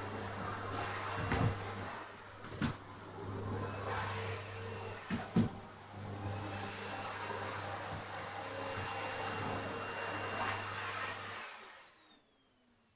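Vacuum cleaner running, its high motor whine dipping in pitch briefly twice, with a few sharp knocks. Near the end it is switched off and the motor winds down.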